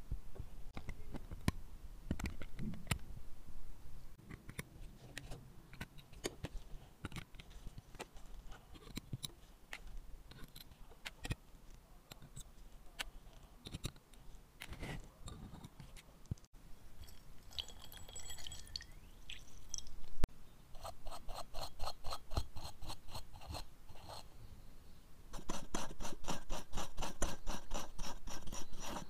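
Small sharp clicks and taps of tweezers on the parts of an Omega Co-Axial 8500 watch movement as its wheel train is taken out. Later comes the rapid, even scrubbing of a brush on movement parts in a bath of cleaning fluid, loudest in the last few seconds.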